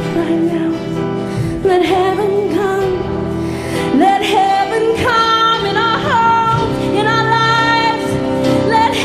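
Live church worship band playing a worship song, with a woman's voice singing lead in long held notes over sustained chords.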